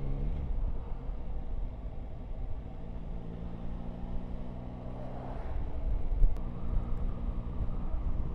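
Yamaha Tracer 9 GT's 890 cc inline-three engine running steadily while riding, with a low wind rumble on the microphone. About five seconds in, an oncoming coach passes with a brief rush of noise.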